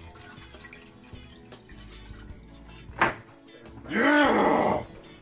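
Pineapple juice poured into a hot frying pan, a faint thin splashing. About three seconds in there is a single sharp knock, and near the end a man gives a loud, drawn-out shout of "Yeah!".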